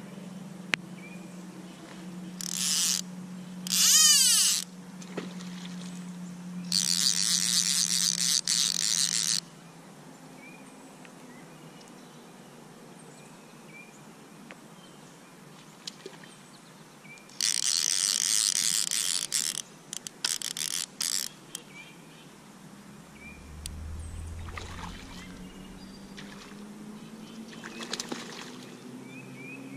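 Fly reel's click drag buzzing in several loud bursts as line is pulled off it, the longest two to three seconds each, over creek ambience, with a light splash on the water near the end.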